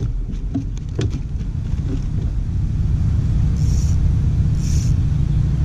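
Wind buffeting the camera microphone: a steady low rumble that strengthens about two seconds in, with a few light clicks near the start.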